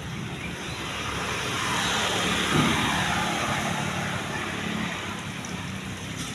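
A motor vehicle passing close by: its sound swells to a peak about two and a half seconds in, then fades away.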